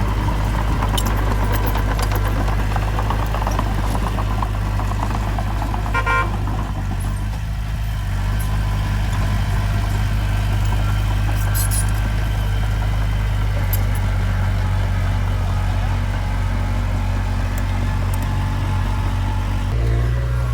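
Diesel engine of heavy earthmoving machinery running steadily, with a short horn-like toot about six seconds in. The engine note steps up near the end.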